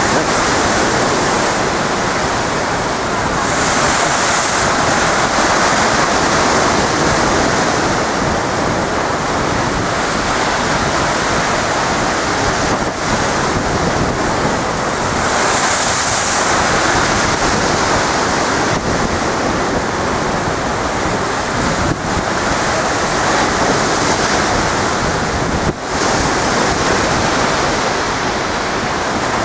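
Storm waves surging and crashing against a sea wall, a continuous loud rush of surf that swells several times, with wind buffeting the microphone.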